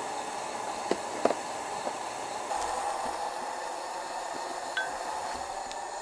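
Coleman two-burner camp stove's gas flame hissing steadily under a frying pan of gratin sauce, with a couple of sharp clicks of a wooden spatula and tongs against the pan about a second in.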